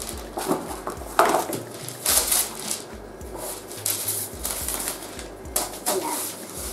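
Parchment paper rustling and crinkling in a series of short bursts as it is handled and smoothed flat on a wooden board.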